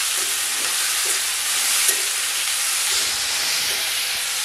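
Grated beetroot, carrot and green beans sizzling steadily in hot oil in an Indalium kadai, stirred with a metal spoon that scrapes the pan now and then.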